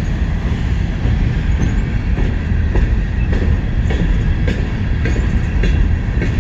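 Freight train cars rolling past with a steady low rumble, and the wheels clicking over the rail joints at a regular beat.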